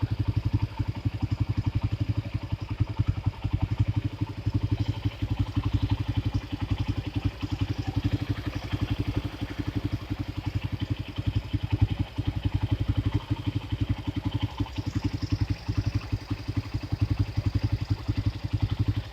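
Tossa Hercules 200cc motor tricycle's single-cylinder engine idling steadily with an even, rapid beat. It runs smoothly after a service.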